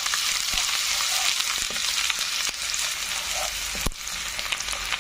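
Chopped ginger and mustard seeds sizzling steadily in hot sesame oil, with small scattered pops and clicks. This is the tempering stage of the masala for a sardine pickle.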